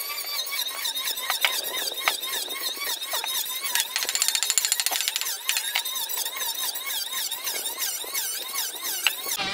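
Continuous dense, high-pitched chirping and squeaking, with a short rapid buzz near the middle, and a few light knocks as wooden boards are handled.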